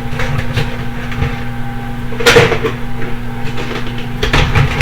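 Knocks and clunks of kitchen things being handled and put away: a few short sharp hits, the loudest about two seconds in and a cluster near the end. A steady low hum runs underneath.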